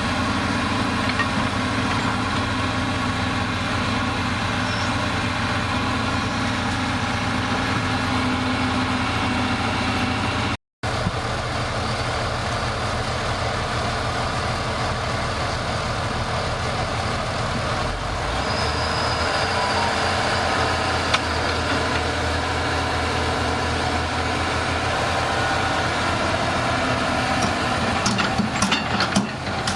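Heavy diesel engine of earth-moving machinery running steadily at a low, even speed. The sound cuts out for an instant about ten seconds in, the engine note shifts a little around eighteen seconds, and a few sharp clicks or knocks come near the end.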